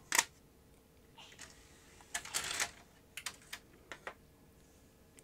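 Plastic clicks and a short clatter as a cassette is put into the cassette holder of an opened-up Philips DCC900 Digital Compact Cassette deck and loaded: a sharp click just after the start, a rattle about two seconds in, then a few lighter clicks.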